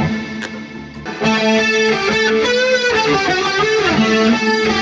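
Electric guitar playing a repetitive riff in octaves on a pentatonic scale. Between about two and a half and four seconds in, some notes glide up and down in pitch, like string bends.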